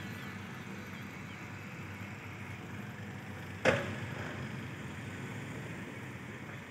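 Diesel engine of a Hino Mega six-wheel dump truck running at low revs, a steady low rumble, with one sharp bang about halfway through.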